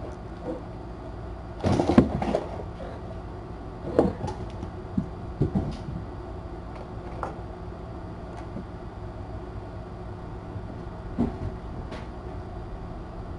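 Scattered bumps and knocks from kittens playing on a cat tree and a cardboard toy castle: a loud cluster about two seconds in, several more around four to six seconds, and a couple of single knocks later, over a steady low hum.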